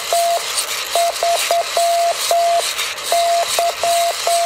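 Morse code from a hand-cranked 40-metre CW transmitter, heard on a receiver as a steady tone keyed on and off in dots and dashes over a constant hiss. The sending is a little ragged but still readable.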